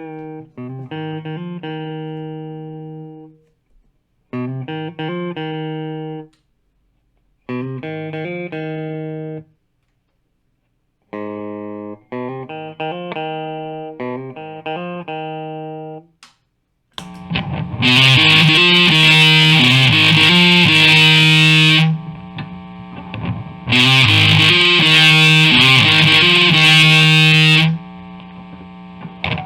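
Squier Classic Vibe Starcaster electric guitar played through an amp: short, fairly clean chord phrases, each ringing out and cut off by a second or two of silence. About two-thirds of the way through it turns much louder and distorted, with sustained heavy chords that briefly drop away twice.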